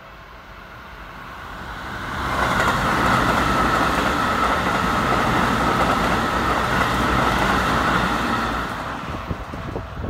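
Electric commuter train passing close by at a level crossing. It swells from about a second in, runs loud and steady for about six seconds with a steady ringing band above the rumble, then fades. Near the end come a few sharp clicks of the wheels crossing rail joints.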